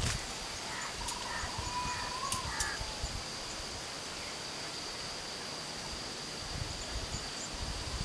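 Forest ambience: a steady high insect drone throughout, a bird's short warbling call about a second in, and wind gusting on the microphone near the end.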